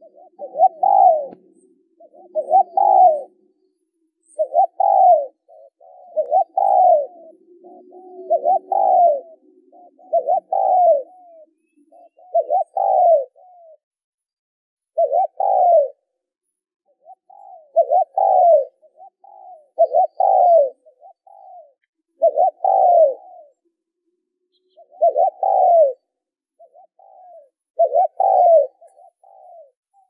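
Spotted dove cooing: a repeated coo phrase about every two to two and a half seconds, each made of a few soft short notes leading into a louder main coo.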